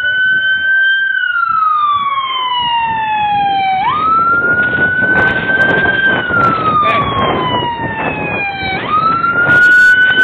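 Fire truck siren on a quint ladder truck sounding a wail: each cycle climbs quickly, holds high, then slides down slowly, about every five seconds. The truck's engine and tyres rumble under it as it passes close by from about four seconds in.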